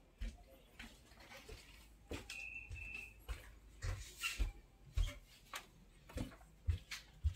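Footsteps on a wooden floor: a dull thump with a click about every half second, at a walking pace. A short high tone sounds briefly, in two parts, between two and three seconds in.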